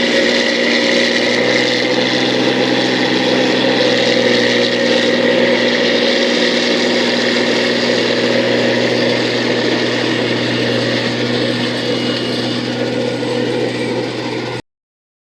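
Combine harvester engine running steadily with machinery whirring, the pitch holding even throughout; the sound cuts off suddenly near the end.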